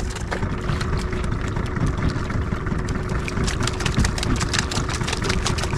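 Fishing boat's engine idling steadily, with a run of light rapid clicks in the middle.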